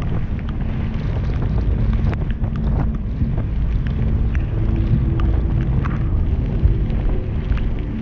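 Wind buffeting the camera's microphone on an open boat at sea: a loud, steady low rumble with faint ticks and splashes over it.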